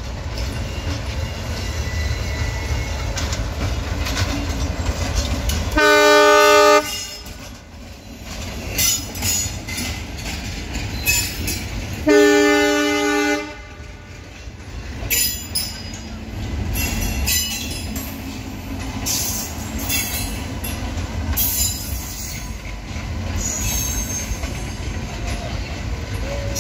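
ALCO WDM3A diesel locomotive's engine rumbling as it passes, with two loud multi-tone horn blasts about 6 and 12 seconds in, the second a little longer. Then passenger coaches roll by, with wheel clatter and scattered high wheel squeals.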